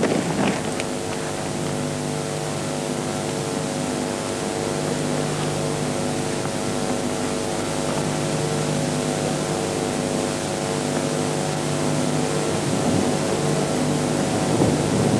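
A steady low humming drone made of several held tones over an even hiss.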